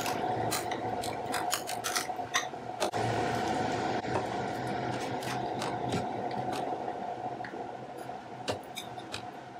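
A steel spoon stirring curry in a metal pan, with irregular clicks and scrapes of the spoon against the pan and a wet squish. A steady hum and whine runs underneath.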